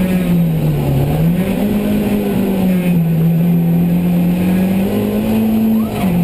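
A track car's engine heard from inside the stripped cabin under hard driving. Its note rises and falls with the throttle through the corners, over road and wind noise, with a short drop near the end.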